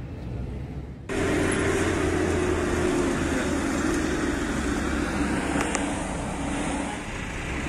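Road vehicle engine and road noise: a steady low hum under a broad hiss. It cuts in abruptly about a second in, replacing a quieter low rumble.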